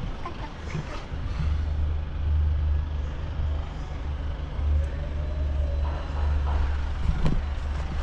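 A vehicle engine running steadily with a low rumble, with a sharp knock about seven seconds in.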